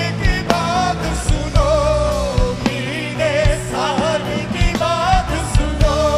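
Live band playing a rock song: a male lead vocal sings over electric guitar, bass and other instruments, with a steady beat.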